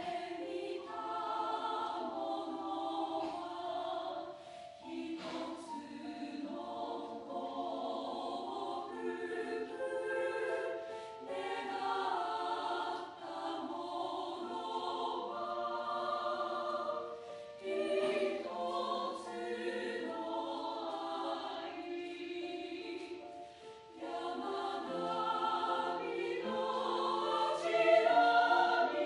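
Choir singing a song in several-part harmony.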